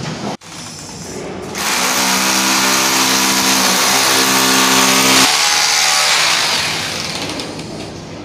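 A machine's motor runs steadily with a strong hiss for about four seconds, starting about a second and a half in, then dies away.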